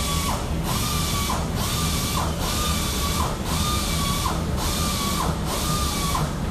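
A motor-driven machine whining in regular strokes, about one every three-quarters of a second. Each stroke rises to a steady pitch, holds, then falls, over a constant mechanical hiss.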